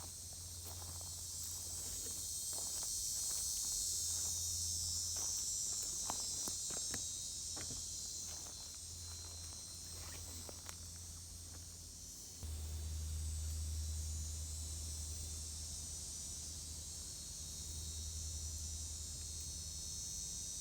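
Insects buzzing steadily in a high band, with irregular footsteps during the first twelve seconds that then stop. A steady low rumble underneath gets louder about twelve seconds in.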